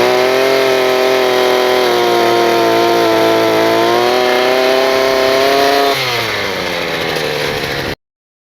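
Gas-powered earth auger's small engine revved up to drill a planting hole, held at steady high speed for about six seconds, then dropped back to idle. The sound cuts off abruptly near the end.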